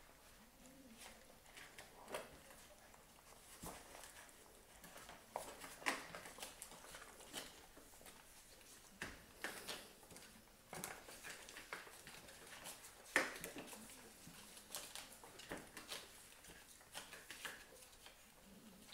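Newborn puppies suckling at their mother: faint, irregular smacking and clicking, with a few sharper clicks.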